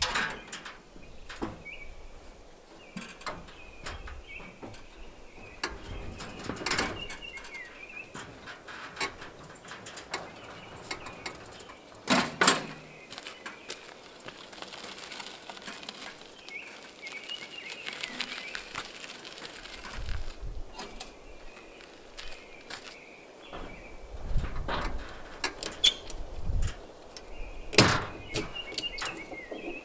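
Scattered clanks and knocks of metal gear and tie-down straps being handled at a trailer. For several seconds midway comes the rolling crunch of a small wood chipper's wheels being pulled over gravel. A bird chirps on and off between them.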